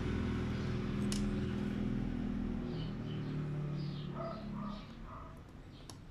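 A low, steady mechanical drone that fades away over several seconds, with a few short high chirps about four to five seconds in.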